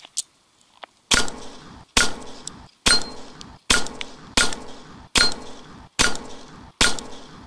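Semi-automatic pistol fired eight times at a steady pace, a shot about every 0.8 seconds, each with a short echoing tail. Several shots are followed by a brief metallic ring from the steel plate targets being hit.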